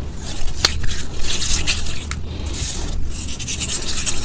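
Crunchy gym chalk loaded with glitter being crushed, a crisp crackling scrape broken by a few sharp snaps, one of them about half a second in.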